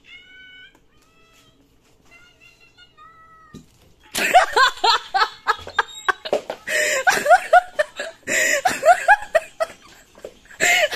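High-pitched, squealing laughter, starting about four seconds in: quick rising-and-falling syllables, several a second, in long loud runs. A laughing sound effect.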